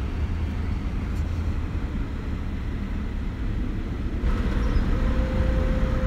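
Steady low rumble inside the cabin of a 2016 BMW Z4 sDrive35i, its straight-six engine idling in park; a faint steady hum joins near the end.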